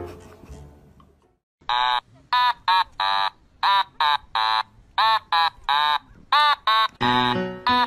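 A kitten mewing: short, high-pitched cries that rise and fall in pitch, repeated about twice a second, starting about a second and a half in.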